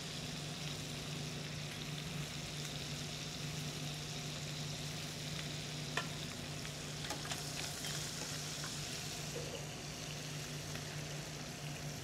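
Shrimp frying in butter and canola oil in a skillet, a steady sizzle, with a steady low hum underneath. Metal tongs click sharply against the pan or bowl a couple of times about halfway through.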